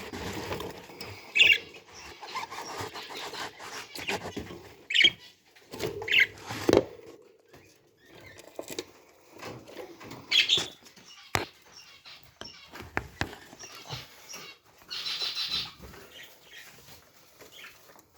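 Pet birds giving short high chirps and squeaks now and then, among scratching, rustling and small clicks.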